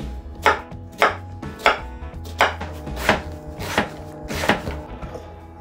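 Chef's knife dicing a sweet onion on a wooden cutting board: about seven sharp chops, roughly one every two-thirds of a second.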